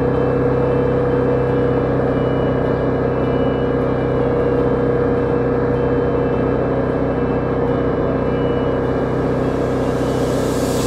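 Honda CB250R's single-cylinder engine running at a steady cruise, its pitch holding level.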